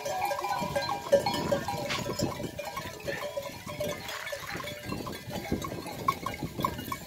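A herd of goats walking past on gravel: many hooves shuffling and crunching, with metal bells clinking among them.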